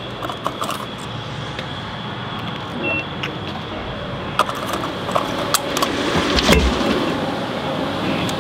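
Scattered clicks and light rattles of handling at a car at the gas pump, with a dull thump about six and a half seconds in, over a steady hum and a faint high steady tone.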